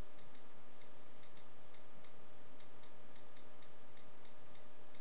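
iPhone on-screen keyboard clicks as a tweet is typed: an irregular run of short, light ticks, a few per second, over a steady background hiss.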